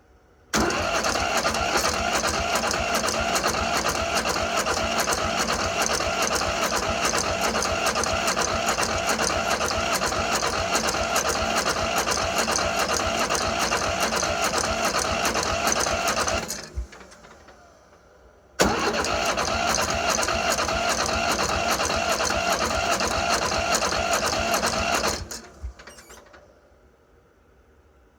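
Starter motor cranking the cold Satoh Bull S-630D diesel tractor engine in long bursts: about sixteen seconds, a pause of about two seconds, about seven more seconds, then a third attempt begins at the very end. The engine does not catch and run on its own in between.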